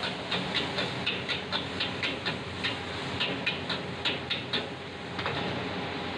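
Metal ladle and spatula clanking and scraping against a steel wok while stir-frying koay teow, about four strokes a second, over a steady hiss of the gas burner and frying. The strokes stop a little before the end.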